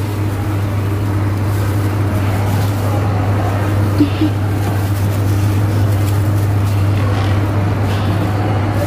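Steady low hum with a faint hiss of background noise, unchanging throughout, with one small click about four seconds in.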